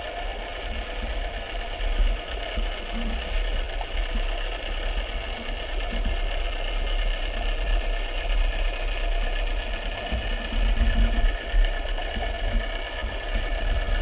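A small motor running steadily, with a deep rumble under a fluttering mechanical buzz.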